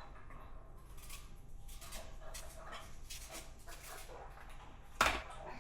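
Faint clicks and scrapes of kitchen work, such as a knife on a cutting board and dishes being handled, with one sharper knock about five seconds in.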